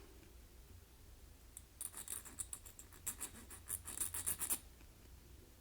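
The small built-in file of a Ganzo 2019S multitool rasping back and forth in quick strokes for about three seconds, starting a little over a second in.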